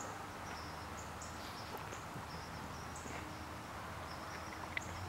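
Insects chirping outdoors at dusk: short high-pitched chirps repeating irregularly over a low steady hum, with one sharp click near the end.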